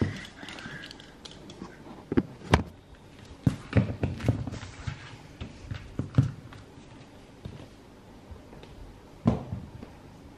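A series of irregular knocks and thumps, the sharpest about two and a half seconds in and another near the end, from a camera being handled and set down on a hard floor.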